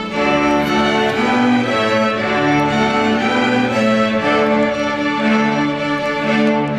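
Orchestral strings (violins and cellos) playing slow, sustained chords that change about once a second.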